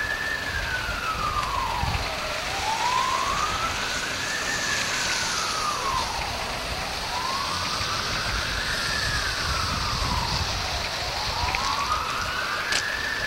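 A siren wailing, its pitch rising and falling in slow, even sweeps about every four and a half seconds, over a steady hiss.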